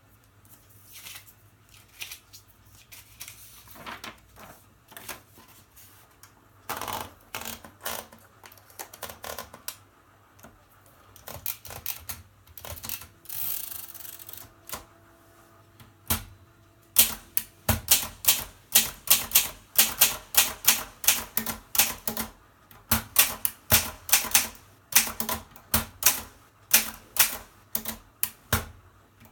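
Mercedes K45 manual portable typewriter: softer clicks, scraping and rustling for the first half or so, then steady typing, loud, sharp type-bar strikes a few times a second, with a couple of short pauses.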